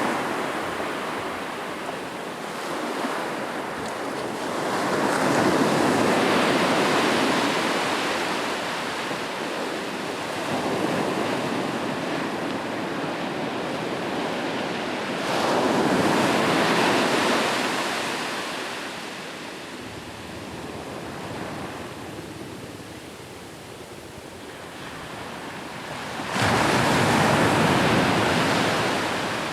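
Ocean waves breaking on a shoreline and washing back, in slow swells: louder surges about five seconds in, around the middle, and near the end, with a quieter lull between the last two.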